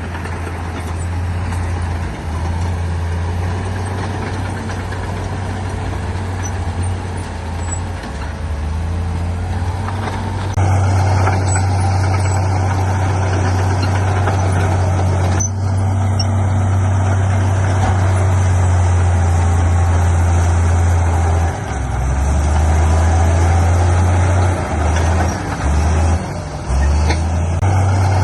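Heavy earthmoving machinery's diesel engine running, a steady low drone that grows louder about ten seconds in and dips briefly a few times near the end.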